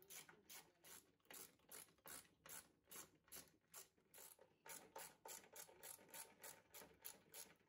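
Socket ratchet wrench clicking faintly and evenly, about three clicks a second, as it turns the bolts holding a washing machine's concrete counterweight.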